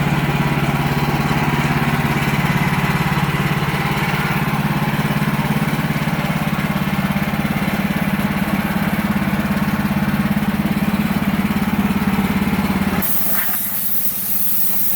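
Sawmill engine running steadily under load as the blade is fed slowly through a log, the cut slow enough that the operator is asked whether the blade is dull or the wood is hard. About 13 seconds in, the engine drone drops sharply and a steady high hiss takes over.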